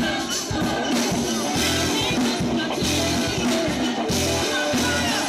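Music with a steady beat and singing.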